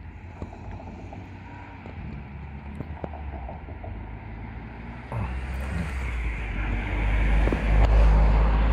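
A road vehicle passing, swelling from about five seconds in to a peak near the end and then fading, over a low wind rumble on the microphone.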